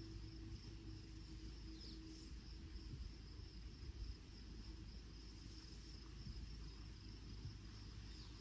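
Faint outdoor ambience: crickets chirring steadily over a low rumble, with a faint steady hum that stops about two and a half seconds in.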